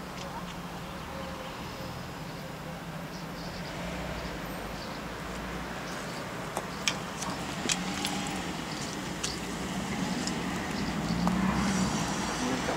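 Outdoor street ambience with a car engine running at low speed, and a few sharp clicks and knocks about seven to eight seconds in.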